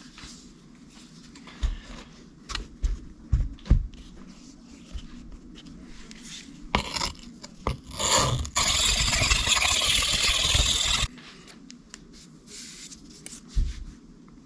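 Steel knife blade scraping across a coarse diamond sharpening plate, grinding out chips in the edge: scattered short strokes and knocks, then a loud unbroken stretch of grinding about nine to eleven seconds in.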